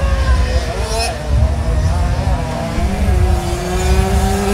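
Several Simson 60 cc single-cylinder two-stroke motocross mopeds running on the track, their engine notes rising and falling as they ride. One note climbs in pitch about three seconds in. Under them is a heavy low rumble.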